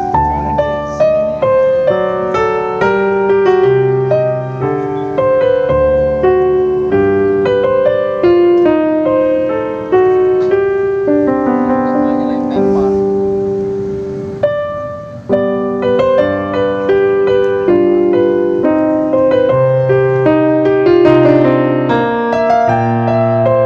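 Background piano music: a steady run of single melody notes over low sustained bass notes, briefly pausing about two-thirds of the way through.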